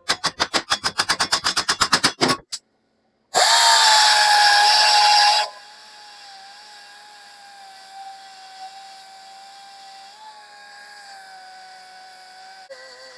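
Power tools working sheet-metal bracing: first a rapid stuttering run of about ten strokes a second for a couple of seconds. After a break, a loud high whirring whine lasts about two seconds and stops abruptly, leaving a faint steady hum.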